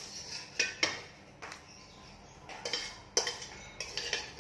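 Metal spoon clinking and scraping against a dish as minced-beef filling is spooned out, with several sharp clinks spread through.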